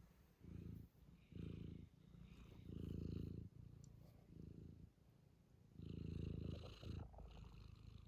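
Domestic cat purring while being stroked, the quiet purr swelling and fading with each breath, about one swell every second.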